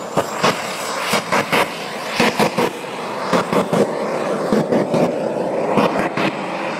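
Jet engine of a jet-powered porta potty running at full power: a loud, continuous roar with a steady high whine, broken by irregular sharp crackles.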